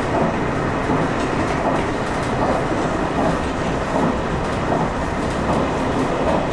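A diesel limited-express train running at speed, heard from inside the driver's cab: a steady rumble of the engine and wheels on the rails, with a recurring clatter of the wheels over the track.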